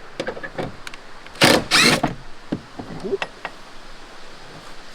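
A door being worked: a few light clicks, then two short, loud scraping slides about a second and a half in, and a brief faint squeak around three seconds.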